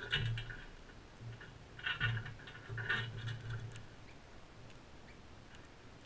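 Crimson rosellas feeding at a seed dish, with three short bursts of sound: one at the start, one about two seconds in and one about three seconds in. After that it turns quieter.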